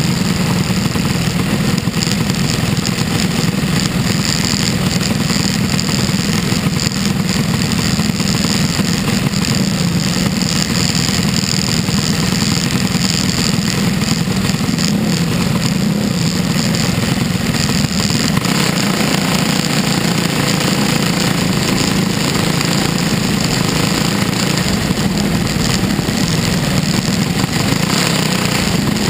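Dirt-track race car's engine running steadily, heard from inside the cockpit, with no revving up or down.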